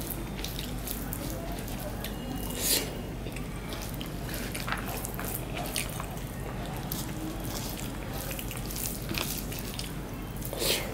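Fingers working rice and vegetable curry on a banana leaf: soft, wet squishing with scattered small clicks over a steady low hum, and a louder wet smack about three seconds in and again near the end.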